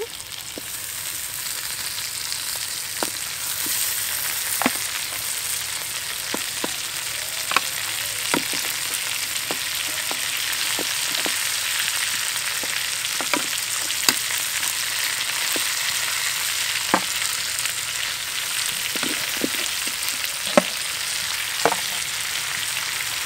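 Chicken legs frying in hot oil in a steel wok: a steady sizzling hiss that grows a little louder over the first few seconds, with scattered sharp pops and clicks.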